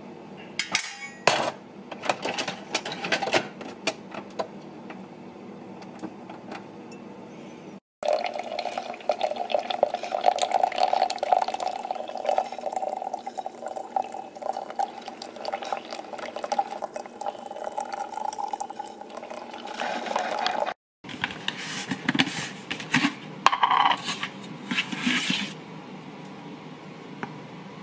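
Cups, spoons and containers clinking while a protein coffee is made, then about thirteen seconds of steady liquid running or filling, then more clinking. The sound breaks off abruptly twice between sections.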